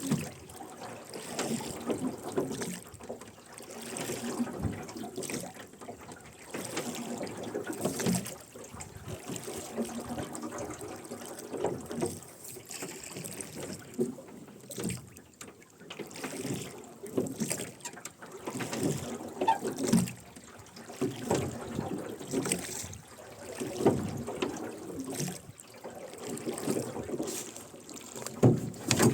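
Rowing-boat oars pulling steadily through river water: oarlocks creaking and blades splashing and dripping, one stroke about every two seconds.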